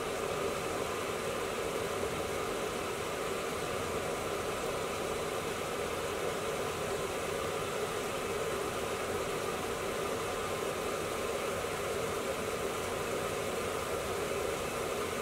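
Steady, even rushing noise of a gas hob burner under a pan of curry sauce simmering, the sauce bubbling gently.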